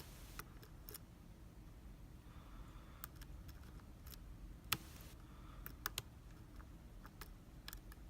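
Faint, irregular clicks of a lock pick and tension tool working the pins inside a small Abus/Brady 71/40 lockout padlock, with one sharper click a little past halfway.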